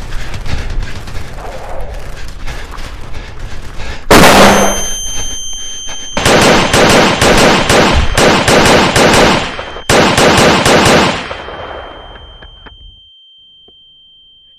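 Long bursts of rapid automatic gunfire, a film sound effect, starting about four seconds in and fading out near the end. A steady high ringing tone comes in under the gunfire and lingers after it.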